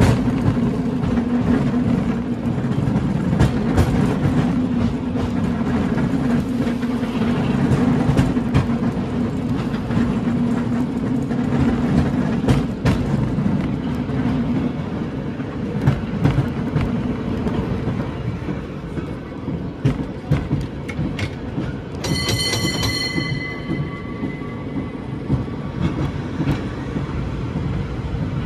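A San Francisco cable car rolling along its track, heard from on board: a steady low rumble with frequent clicks and rattles. About three-quarters of the way through comes a brief bell-like ring that fades within a couple of seconds.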